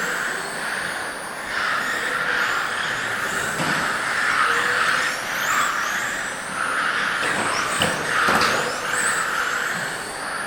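Electric RC cars with 17.5-turn brushless motors racing on track: a high motor whine that rises and falls with tyre hiss, swelling and fading every second or two as cars pass. There is a sharp tap about eight seconds in.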